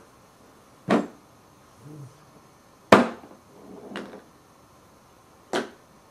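Sharp taps and clacks of a marker and game pieces being set down on a whiteboard game board: three loud knocks about two seconds apart, with softer rustling handling sounds between them.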